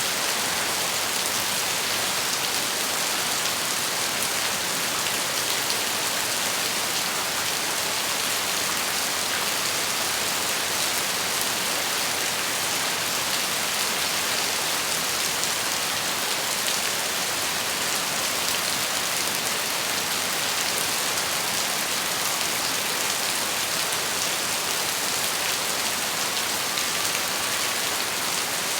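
Steady rain falling: an even, unbroken hiss of many drops with a fine patter of individual drop ticks.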